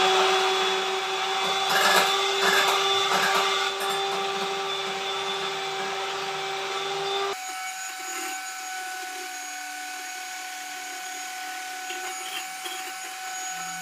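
Electric hand mixer running steadily with a motor whine, its beaters whisking eggs in a glass bowl for a sponge cake batter. About seven seconds in the sound turns abruptly quieter and thinner, and the whine carries on.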